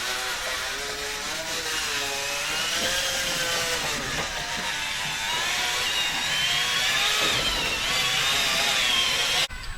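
Small electric motors of RC construction machines whining, their pitch wandering up and down as they change speed, over a mechanical hiss. The sound cuts off abruptly near the end.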